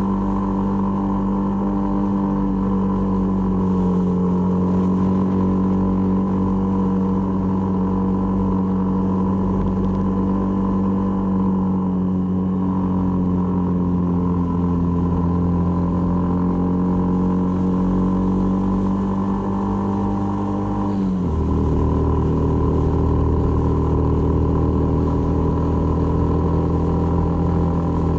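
Honda MSX125's single-cylinder four-stroke engine running at steady riding revs. About three-quarters of the way through, its pitch drops suddenly as it shifts up a gear, then holds steady at the lower revs.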